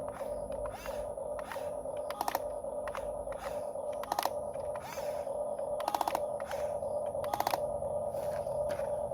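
Huina RC excavator's small electric motors whining steadily, with scattered clicks and four short bursts of rapid clattering.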